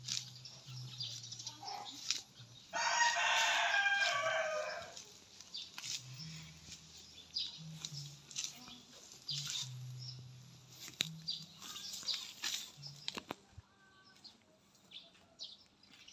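A rooster crows once, about three seconds in, for about two seconds. Under it and around it come the short clicks of a cow tearing and chewing grass.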